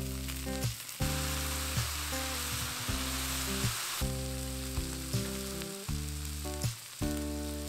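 Sausages and sliced mushrooms sizzling in a steel frying pan, the hiss strongest for a few seconds after the mushrooms go in. Background music with steady sustained notes plays along with it.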